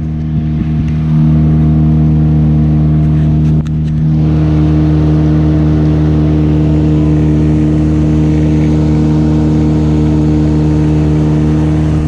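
Boat engine running steadily under way at a constant pitch, a little louder from about a second in.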